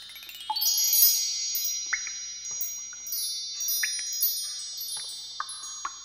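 Chime sound effects for an animated ink-splash title intro: a shimmer of high ringing tones that climbs in pitch during the first second, then rings on and slowly fades. About five short, sharp plinks are spaced a second or two apart.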